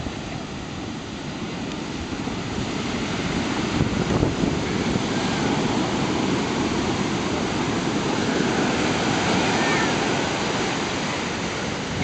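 Heavy ocean surf: large waves breaking and foaming whitewater washing up the sand in a steady rush, growing louder a few seconds in.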